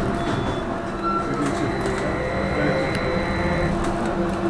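Ride noise inside a trolleybus: a steady hum from the electric traction equipment over a road rumble, with a faint whine that rises in pitch around the middle.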